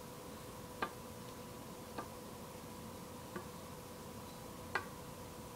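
Several faint, light clicks, a little over a second apart, as a pencil is nudged into balance across another pencil on paper, over a faint steady hum.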